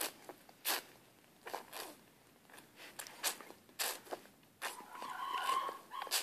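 A baby sucking and smacking on a mesh fruit feeder: a handful of short wet clicks and smacks, then a soft baby vocalization near the end.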